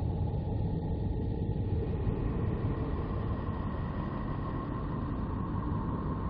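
Sonified spacecraft radio or plasma-wave recording: a steady low rumbling noise with faint held tones. About two seconds in, a higher hiss comes up.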